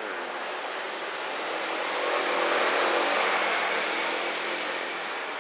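A vehicle passing by: a rush of engine noise that swells to its loudest about halfway through and fades again.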